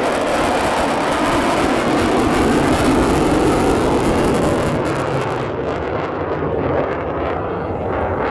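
Jet noise from an F-15J Eagle fighter's twin turbofan engines: a loud, dense rushing that peaks about three seconds in, then loses its high hiss near the middle as the jet moves away, leaving a lower rumble.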